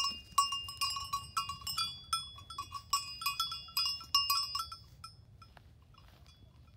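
Metal neck bell on a Brown Mountain Sheep clinking rapidly, about five strikes a second, as the sheep moves. The clinking dies away to faint, scattered clinks about five seconds in.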